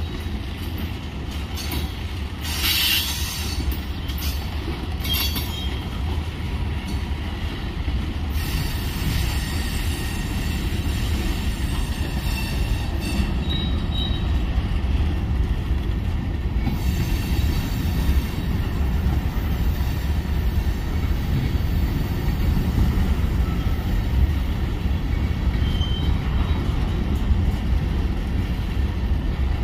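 Covered hopper cars of a Union Pacific manifest freight train rolling past: a steady low rumble of wheels on rail, with sharp wheel squeals a few seconds in, and short high squealing tones midway and again near the end.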